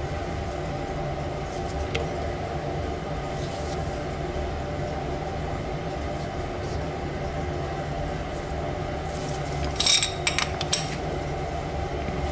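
Workshop machine's electric motor running with a steady hum, with a few light metallic clinks about ten seconds in.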